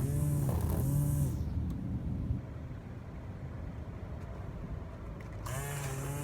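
An engine running steadily, sounding duller through the middle few seconds before the fuller sound returns near the end.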